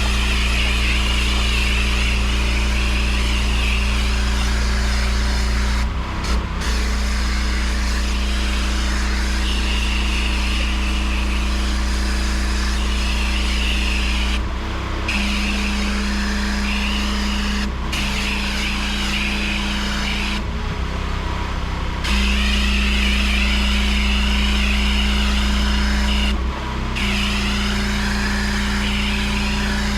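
Pressure washer running steadily with its water jet spraying onto block paving. The spray cuts off briefly several times, and the motor note shifts each time.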